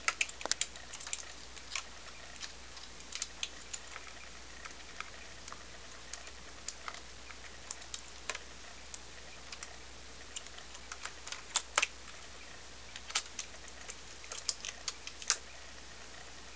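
Computer keyboard keys clicking in irregular single taps and quick clusters as a pet cockatiel plays on the keyboard, over a faint steady low hum.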